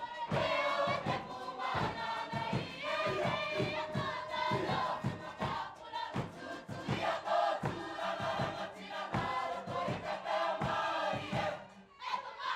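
A large group singing together in a Cook Islands action song, with a regular drum beat underneath.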